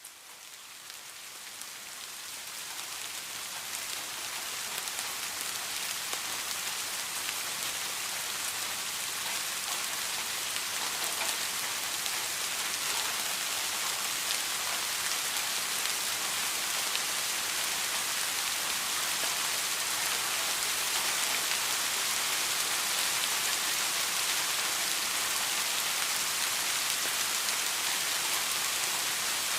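Steady rain falling, a dense even hiss of drops that fades in over the first few seconds and then holds constant.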